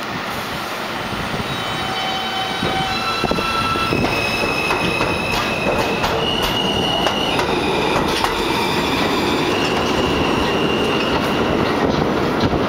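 R160A subway train with Alstom propulsion pulling out of the station: the traction motors whine in rising steps as it gathers speed over the first few seconds, then the cars roll past with high steady wheel squeal and clacking over the rail joints.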